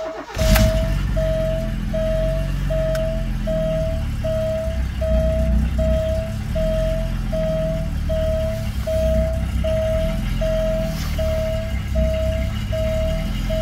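Alfa Romeo Milano engine on a cold start after three months unused, heard from inside the cabin: a loud burst about half a second in, then a steady idle around 1,000 rpm. Through it the car's warning chime beeps steadily at one pitch, about two and a half times a second.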